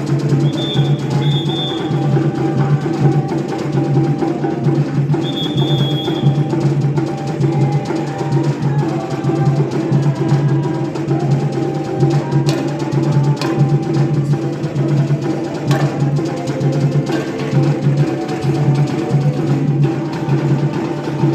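Band rehearsing an instrumental passage: drums and percussion over a steady, pulsing bass line.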